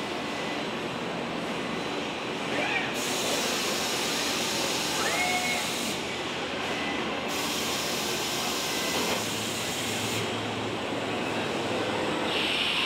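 Steady industrial noise from a cell of robot arms on a car-body line. A few short rising-and-falling whines come from the arms' motors as they move, and a stretch of hiss runs through the middle.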